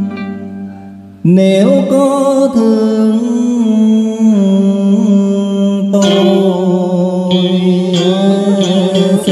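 Instrumental break of a song: a melody of long held notes that slide between pitches, over a steady low note. The music dips in volume at the start and comes back full about a second in.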